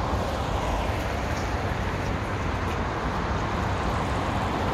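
Steady city street ambience: a continuous hum of road traffic with no single event standing out.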